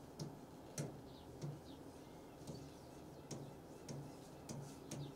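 Marker pen writing on a board: faint short squeaks and taps from the pen strokes at irregular intervals.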